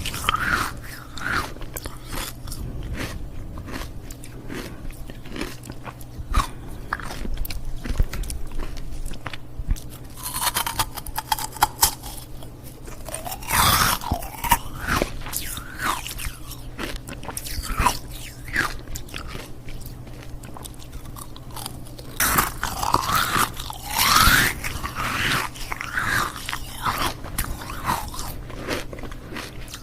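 Ice cubes being bitten and chewed close to the microphone: a run of sharp, crisp crunches and cracks, with louder clusters of bites about a third of the way in and again after two thirds.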